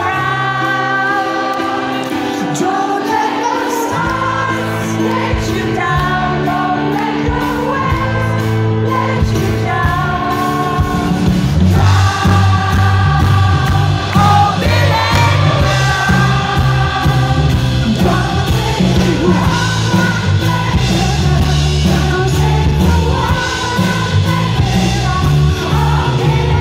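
Live pop song: a male lead voice singing over piano, with bass coming in a few seconds in and the full band filling out from about halfway.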